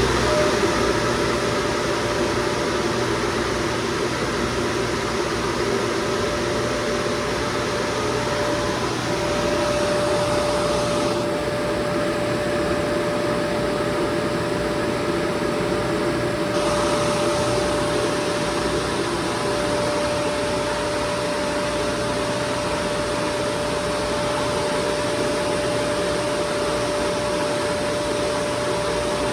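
FMC M10000 aircraft ground air-conditioning unit running steadily while it warms up: an even rush of air and machinery noise with a steady whine that dips briefly about nine seconds in.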